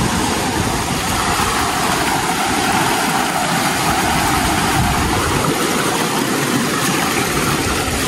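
Steady rush of river water running over rocks, an even hiss without breaks.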